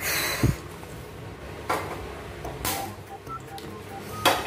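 A short swish and a low thump, then a few sharp knocks and clicks of a frying pan and utensils on a gas stove. Some faint short beeps sound in the second half.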